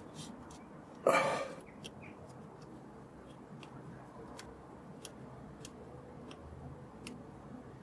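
A short, loud grunt-like burst about a second in, then faint scattered clicks and ticks of hand tools on engine parts over a low background hum.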